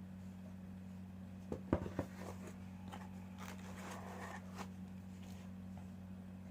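A few sharp knocks and clicks, then crinkling and rustling of packaging being handled, over a steady low electrical hum.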